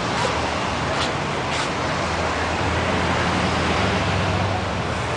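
Small ocean waves washing onto a sandy beach and breaking on a rock breakwater: a steady rushing surf noise. A low steady hum joins it about halfway through.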